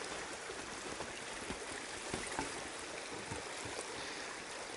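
River current running over a shallow riffle: a steady rush of water with small splashes and ticks in it.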